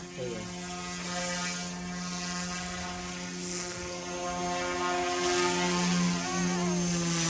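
Small electric RC helicopter in flight: a steady hum and whine from the spinning rotors and motor, holding a near-constant pitch and growing a little louder from about five seconds in.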